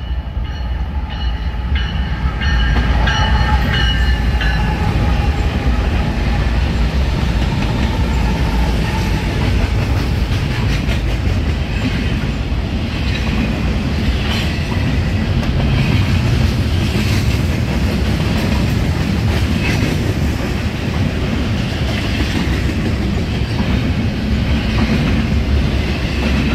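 Double-stack intermodal freight train passing close by, pulled by several diesel locomotives: a loud, steady low engine rumble with the rail cars clattering over the track. A few thin high tones sound in the first few seconds, and the sound grows louder about two seconds in.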